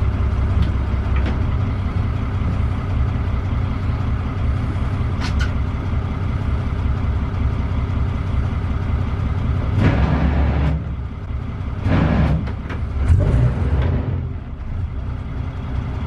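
A boat's inboard diesel engine running steadily during slow manoeuvring. Its sound swells a few times about ten to thirteen seconds in and dips briefly in between.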